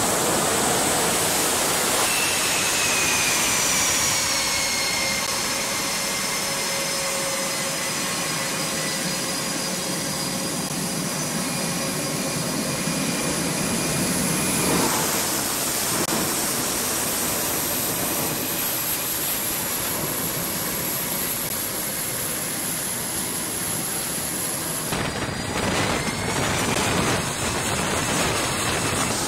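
Jet engines running on a carrier flight deck: a loud, steady rush of noise with high turbine whines that slowly fall in pitch. The sound shifts abruptly a few times.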